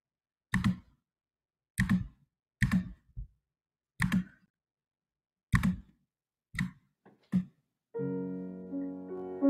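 About nine sharp computer clicks at uneven intervals, the kind made while operating a mouse and keyboard. Piano music starts near the end.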